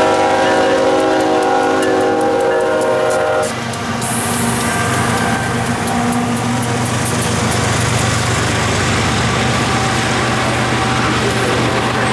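A diesel freight locomotive's horn sounding a steady multi-note chord that cuts off about three and a half seconds in. After it, the train's coal hoppers roll past with a steady rumble and wheel clatter, with a brief high hiss near four seconds.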